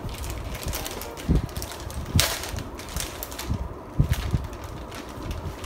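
Wrapping paper rustling and crinkling as a present is unwrapped by hand, with one louder burst of paper noise about two seconds in and a few soft low thumps.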